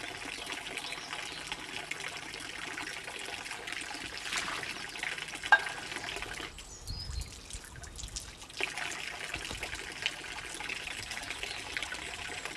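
Water from a stone village fountain's spout running steadily and splashing into its basin; the splashing dulls for a couple of seconds past the middle as hands are held in the stream to wash. One sharp click about halfway through.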